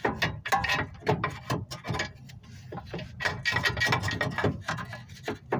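Metal clunks, clicks and scraping as a 2016 Dodge Journey's lower control arm is pulled and worked by hand to free its ball-joint stud from the steering knuckle. The knocks come irregularly, with two longer scraping stretches about half a second in and again around three to four seconds in.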